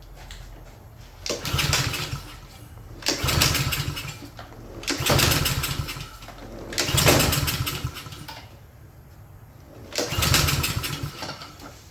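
Honda engine on a Craftsman self-propelled lawn mower being pull-started five times. Each pull cranks it for about a second, with a longer pause before the last, and it never keeps running. The owner puts this down to a carburetor problem flooding the engine with gas.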